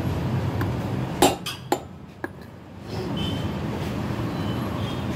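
Hammer blows on the hub of an Alto 800 rear brake drum, knocking at the wheel bearing to drive it out. After a faint tap there are three sharp metallic strikes about half a second apart, the first the loudest, over a steady low hum.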